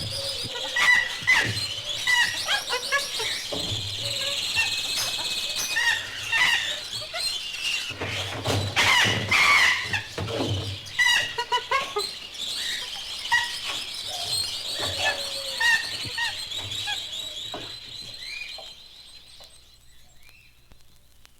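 A busy mix of animal squeals and bird chirps and trills, many calls overlapping, fading out over the last few seconds.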